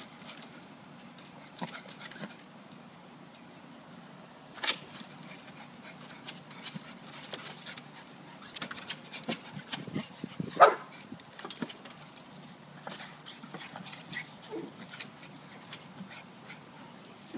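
A dog giving a few short barks, the loudest about ten and a half seconds in, with scattered light clicks between them.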